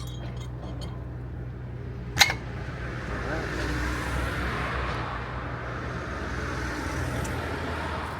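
Brake pad being fitted into a disc brake caliper: a few light metallic clicks, then one sharp click about two seconds in as the pad is pressed home, followed by a steady rushing noise over a low background hum.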